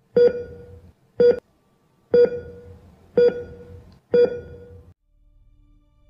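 Heart-monitor beep sound effect: five electronic beeps about a second apart, each a clear tone that starts sharply and fades. A faint low hum comes in near the end.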